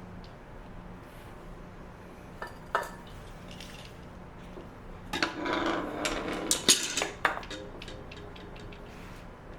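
Metal tools and parts clinking and clattering: a couple of sharp clicks, then a burst of rattling clatter about five seconds in, lasting two or three seconds.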